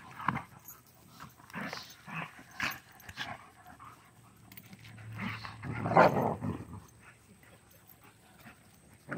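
Dogs play-fighting, growling in short irregular bursts. A louder, longer spell of growling comes about five to seven seconds in as the wrestling gets heated and one dog turns peeved.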